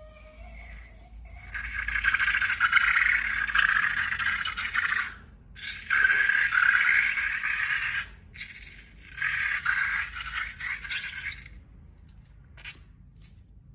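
Crackly scraping and rattling handling noise in three bursts of a few seconds each, dying away to a few faint ticks near the end.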